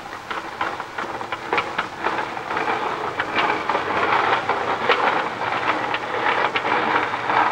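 Ship's anchor chain clanking and rattling as the anchor is hauled up, over a steady rush of water spray. The sound builds over the first couple of seconds.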